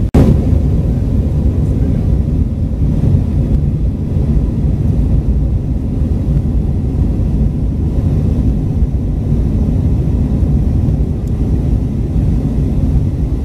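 Steady low rumble of a jet airliner's cabin in cruise flight: engine and airflow noise heard from inside the cabin.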